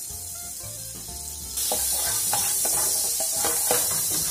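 Butter and oil sizzling in a frying pan, the sizzle growing much louder about a second and a half in.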